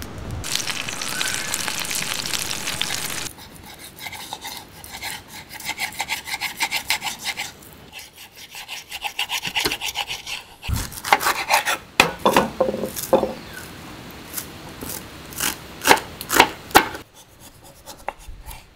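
A wood fire burning for about three seconds, cut off suddenly. Then a kitchen knife sawing through raw salmon fillet on a wooden cutting board in quick rhythmic strokes. In the second half come sharper, crisper knife cuts that knock on the board several times.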